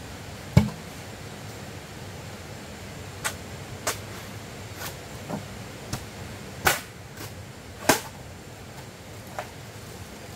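Green bamboo being knocked and chopped with a machete: about ten sharp wooden knocks at uneven intervals, the loudest about half a second in and two more in the second half, over a steady background hiss.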